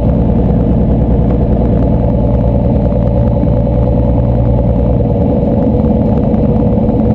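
Slingsby T-67 Firefly's piston engine and propeller running at low power while the aircraft taxis, heard from inside the cockpit. The note is steady, and shifts slightly about five seconds in.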